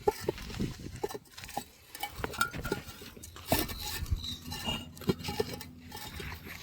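Irregular light knocks and clinks of bricks and masonry tools being handled during bricklaying.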